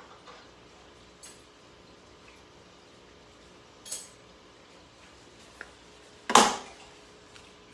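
Kitchen utensils and dishes clinking: two light metallic clinks a couple of seconds apart, a small tick, then one much louder clank about six seconds in that rings out briefly.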